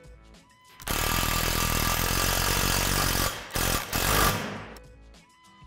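Cordless impact driver running bolts into the lifter-arm hardware: one run of about two and a half seconds, a brief pause, then a second run of about a second before it stops.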